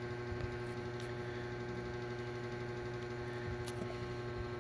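Steady electrical hum on the recording, with a couple of faint clicks.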